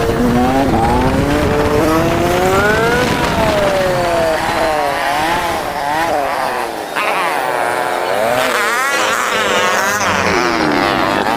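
Honda CG 125 single-cylinder four-stroke motorcycle engine revving and easing off through the gears, played back sped up so its pitch sits high and glides up and down quickly. About two thirds of the way in it dips briefly, then wavers rapidly up and down.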